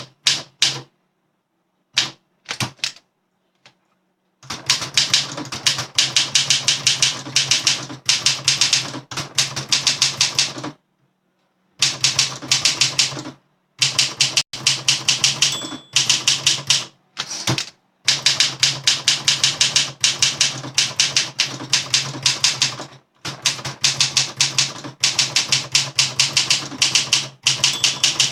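Olympia SM7 manual portable typewriter being typed on at speed: fast runs of crisp keystrokes in bursts of a few seconds, broken by short pauses.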